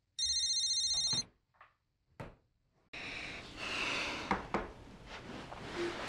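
Mobile phone ringing: a rapidly pulsing electronic ringtone of high tones that stops after about a second, unanswered. About a second later comes a click, then rustling and a few light knocks as the phone is handled on a wooden table.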